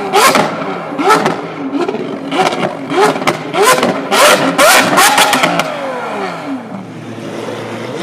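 Modified Lamborghini Aventador's V12 being free-revved in quick blips, about eight in a row, each rising in pitch and dropping back, with sharp exhaust cracks at the peaks. About six seconds in the last rev falls away slowly and the engine settles to a lower, steadier note.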